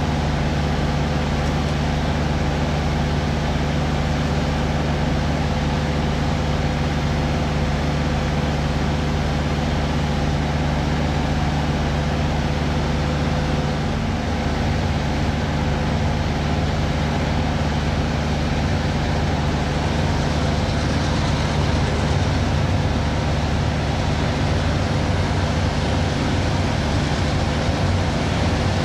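Diesel freight locomotives working under load as a freight train climbs a steep mountain grade, a steady engine drone with train noise. The engine tone changes about halfway through.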